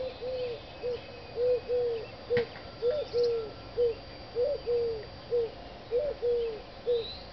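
Neighbours' dogs barking over and over, about two barks a second at an uneven pace, some in quick pairs. The barks come through thin and muffled, as from a distance. A single sharp click falls about two seconds in.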